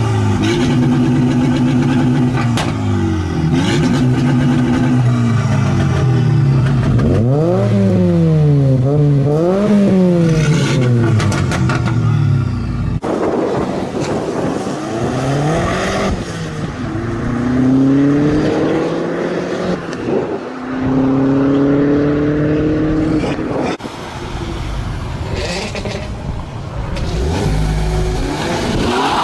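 Car engines revving and accelerating, the pitch climbing and dropping several times, with a sudden break about halfway through.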